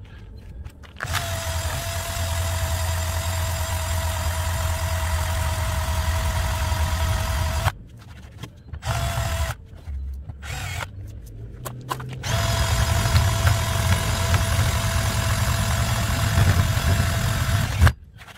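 Drill spinning a rubber adhesive-eraser wheel against painted truck bodywork, rubbing off pinstripe decals. It gives a steady whine for about seven seconds, stops, gives a short burst, then runs again for about six seconds.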